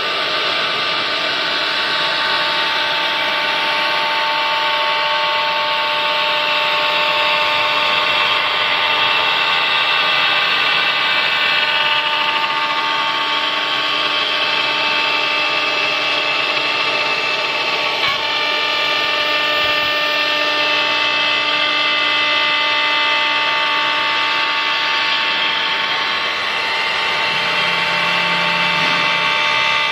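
4-axis CNC router running: a steady, loud machine noise with several high whining tones that shift slightly now and then, and a single click about eighteen seconds in.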